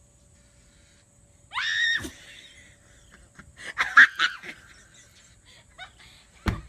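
A short, high-pitched cry that rises in pitch about one and a half seconds in, then a cluster of sharp shrieks and knocks around four seconds in, and a single thump near the end.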